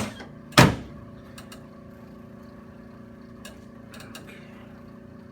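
A single sharp knock about half a second in, then a steady low hum with a few faint ticks.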